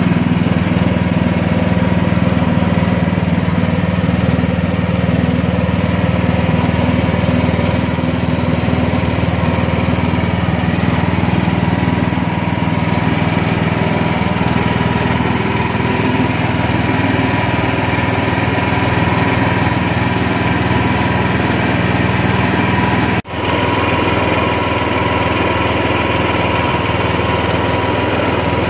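Small Honda petrol engine running steadily, driving a screw press that squeezes grated pulp. The sound drops out for an instant about three-quarters of the way through.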